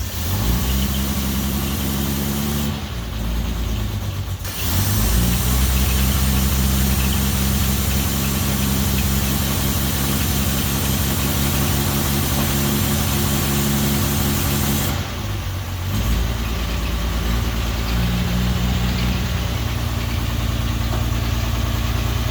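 1949 Rover P3 engine idling steadily just after a cold start, with its choke held on by hand. The engine note shifts twice, about three seconds in and about fifteen seconds in.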